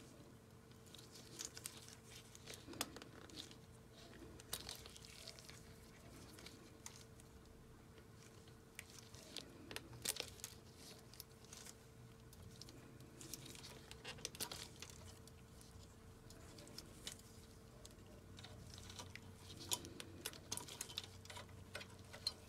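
Wire stripper cutting and pulling the plastic insulation off thin yellow wires, with gloved hands handling the wire bundle: faint scattered clicks and crinkles, a few of them louder.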